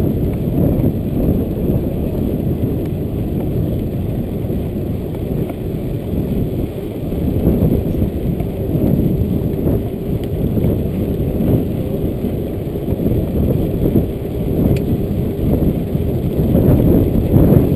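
Wind buffeting the microphone of a body-mounted camera on a mountain bike riding along an asphalt road: a steady, loud low rumble.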